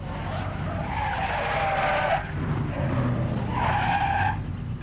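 Car tyres squealing under sudden hard braking: a screech of about two seconds, then a second, shorter screech near the end, over a low traffic rumble.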